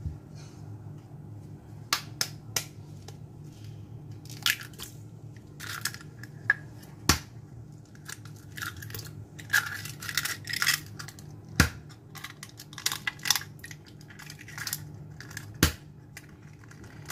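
Eggs being cracked one after another against a stainless-steel mixing bowl: sharp taps about four seconds apart, each followed by the crackle of the shell being pulled apart.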